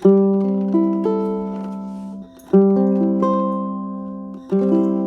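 Acoustic string instrument with a torrefied spruce top and mahogany back and sides, fingerpicked: notes of a chord are plucked one after another and left to ring, with a new chord struck about halfway and again near the end.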